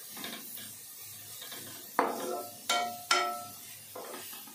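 Grated bottle gourd sizzling as it fries in ghee, stirred in the pan, with a spoon clanking against the pan three times, about two to three seconds in.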